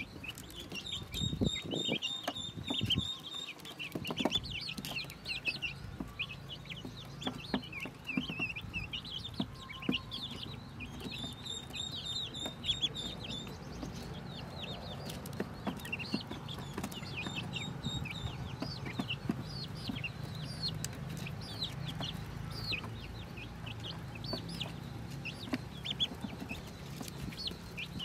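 Pekin ducklings peeping constantly, a dense chatter of short, high-pitched peeps from many chicks at once, with light tapping of bills at a feed dish.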